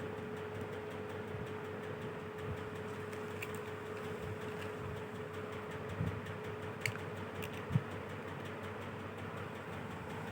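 Steady background noise with a faint hum, and a few light clicks and taps about six to eight seconds in.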